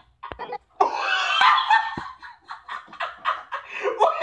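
Laughter: after a short click, a loud high laugh starts about a second in and breaks into quick, rhythmic bursts.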